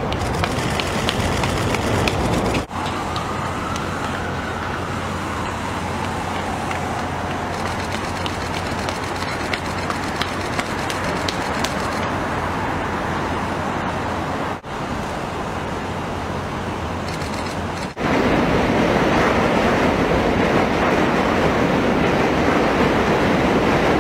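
Steady city street noise with a traffic rumble, broken by abrupt cuts between clips, and louder over the last few seconds.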